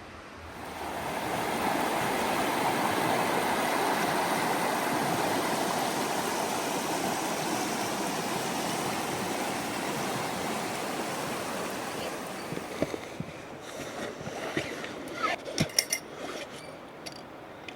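A steady rushing outdoor noise. About two-thirds of the way through it gives way to sharp, irregular snaps and clicks of kindling being handled to start a campfire.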